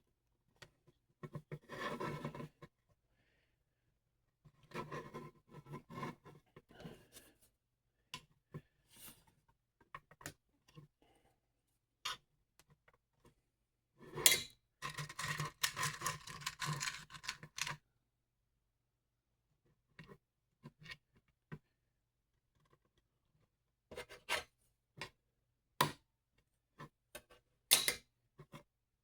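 Handling and fitting M5 bolts and washers into 3D-printed plastic mounting pieces: intermittent scraping and rubbing of metal on plastic in three longer spells, the longest past the middle, then scattered sharp clicks near the end.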